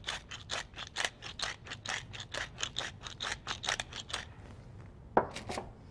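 Hand-twisted wooden pepper mill grinding pepper, a quick even run of crunchy clicks, about four or five a second, that stops a little after four seconds in. Two sharp knocks follow near the end.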